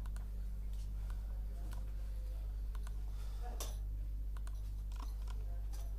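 Scattered clicks of a computer mouse and keyboard as 3D CAD objects are selected and moved, with the sharpest click about three and a half seconds in, over a steady low electrical hum.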